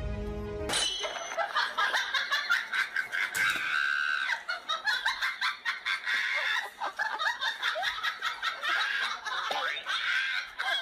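Laughter in quick, high-pitched bursts, going on for about ten seconds. A stretch of music cuts off about a second in.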